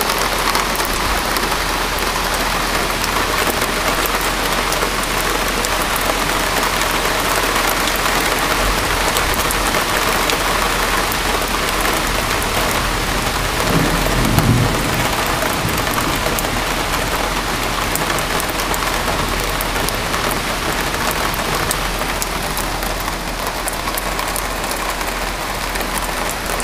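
Heavy rain falling steadily, a dense even downpour with scattered close drop ticks. There is a brief low rumble about halfway through.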